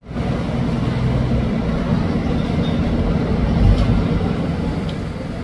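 Steady low rumble of a moving vehicle, swelling a little past the middle.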